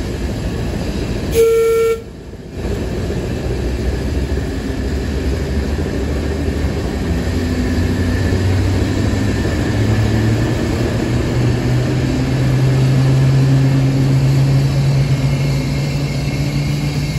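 Diesel shunting locomotive sounds its horn once, a short single note, then its engine runs and revs up, the rumble rising in pitch, as it pulls away hauling a carriage.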